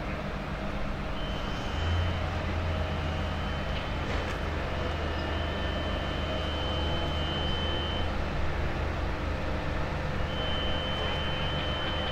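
A large vehicle's engine runs steadily, its low drone strengthening about two seconds in. A thin, steady high-pitched tone sounds on and off over it.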